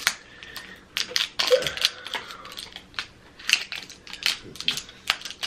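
Plastic cutlery wrapper being crinkled and torn open by hand: an irregular run of sharp crackles and clicks.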